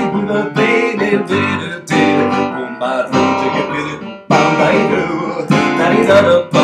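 Digital piano played in short, rhythmic chord phrases with brief gaps between them: an instrumental passage between sung lines.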